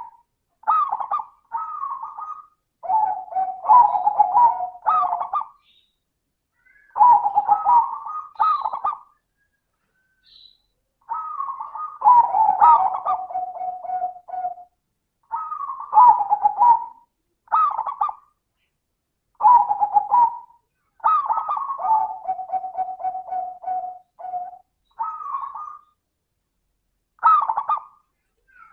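Zebra dove (perkutut) cooing in repeated phrases, each a run of quick rolling notes. Some phrases end in a long, steady lower note.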